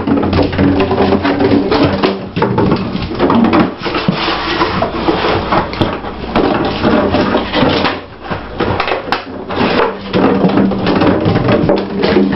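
Empty plastic juice bottle crackling and clattering continuously on a vinyl floor as a Greater Swiss Mountain Dog puppy chews it and pushes it around, with a brief lull about eight seconds in.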